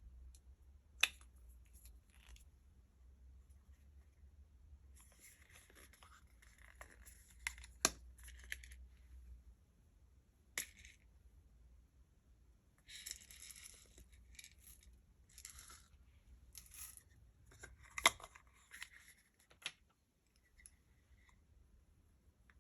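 Close-up handling sounds of makeup and slime mixing: scattered sharp clicks and taps, the loudest about a second in, near 8 s and near 18 s, between short bursts of crackly scraping.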